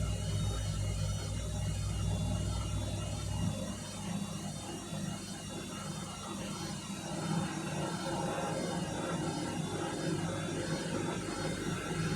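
A 7 kg washing machine running with its drum loaded beyond capacity, its motor and drum giving a steady hum with a rushing wash over it. The deepest part of the hum drops away about three and a half seconds in.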